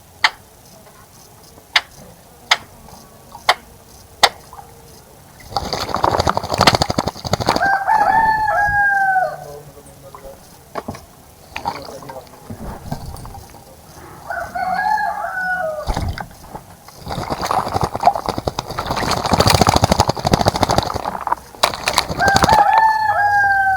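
A bird splashing in a birdbath in loud bursts lasting several seconds each, after a few sharp clicks. A rooster crows three times in the background.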